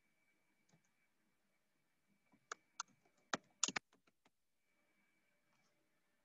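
Computer keyboard typing: a handful of separate keystrokes, bunched between about two and four seconds in.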